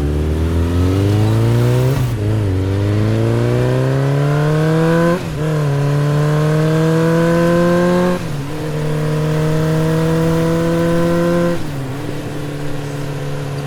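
Vehicle engine accelerating up through the gears: its pitch climbs, drops sharply at each gear change about every three seconds, and climbs again. Near the end it settles lower and steadier.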